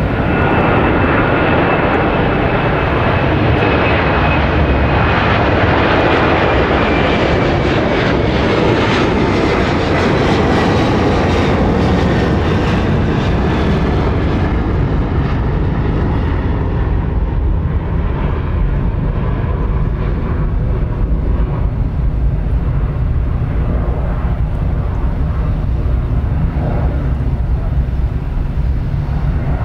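Airbus A330-300 twin-engine jet climbing out at takeoff power, passing close overhead. A loud jet roar carries a thin whine that slides down in pitch during the first dozen seconds. After that the high part fades and a low rumble is left as the aircraft climbs away.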